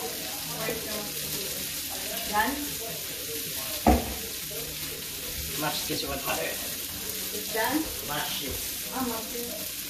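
Chicken pieces deep-frying in canola oil in a pot, a steady sizzle. A single sharp clank about four seconds in.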